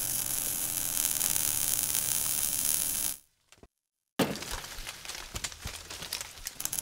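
Logo-animation sound effect: a loud sizzling hiss with fine crackle that cuts off about three seconds in. After a short gap comes a sudden crash, then crackling hiss that dies down.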